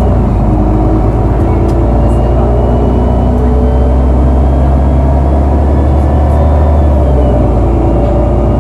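Irisbus Citelis 18M articulated city bus engine idling steadily while the bus stands still, a deep, even hum.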